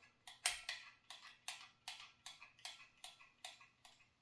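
Pfaff 130 sewing machine with its 50010 'coffee grinder' stitch-pattern cam attachment, turned over by hand: a steady run of light mechanical clicks, about four a second.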